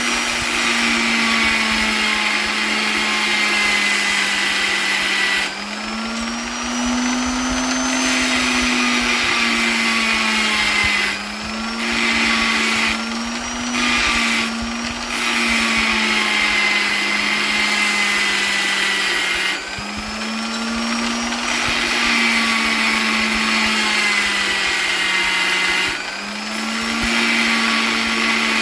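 Electric polisher motor running continuously with a steady whine. Its speed and pitch swell and sag, and the sound briefly drops every few seconds.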